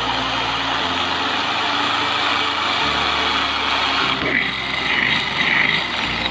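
Electric drill running steadily, its bit boring into the thin metal side of an aerosol spray paint can.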